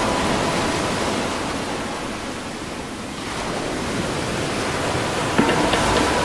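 Sea surf washing in, a steady rush that eases about halfway through and builds again.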